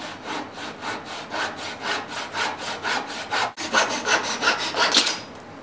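Flush-cut saw sawing off the protruding end of a glued-in wooden bow tie key, in quick, even back-and-forth strokes, with a brief pause about three and a half seconds in.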